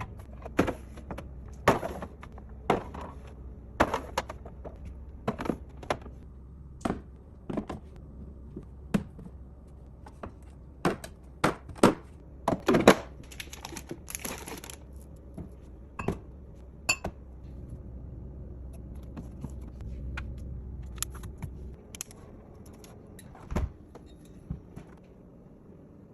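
Packaged snacks and drinks knocking and clicking as they are set into a fridge: a run of irregular sharp taps and knocks, a few louder, over a low steady hum that stops a few seconds before the end.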